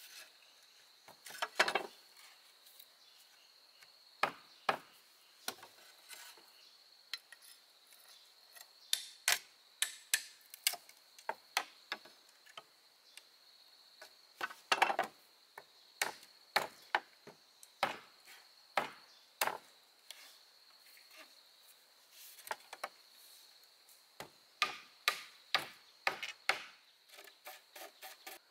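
Irregular sharp wooden knocks and taps, some single and some in quick clusters, over a steady high-pitched drone typical of insects.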